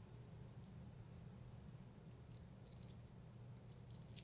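Small metal parts lightly clicking and scraping as they are fitted together by hand: a steel washer being slid onto a pin through a domed metal cap. A few faint clicks come in the second half, the loudest just before the end.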